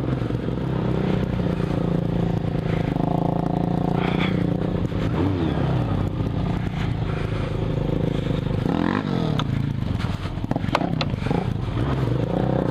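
Suzuki Bandit 1200's inline-four engine running steadily as the street bike rides a rough dirt trail, its pitch dipping and rising briefly a couple of times. A cluster of knocks and rattles from the bike jolting over bumps comes about two-thirds of the way in.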